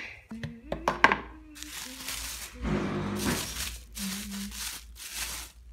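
Plastic container lids knocking and clattering a few times, the loudest knock about a second in, then a black plastic bag lining a bucket rustling and crinkling in repeated bursts as it is pulled open.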